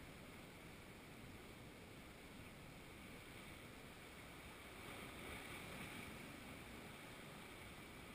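Faint, steady wash of surf breaking on rocks, with a slight swell of the sea noise about five seconds in.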